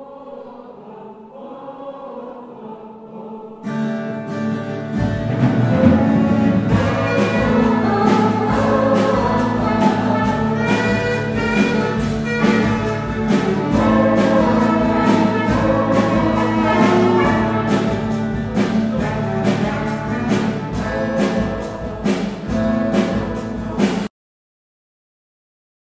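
Choir singing a worship song, softly at first. About four seconds in, a full instrumental accompaniment with a steady beat joins it. The music cuts off suddenly near the end.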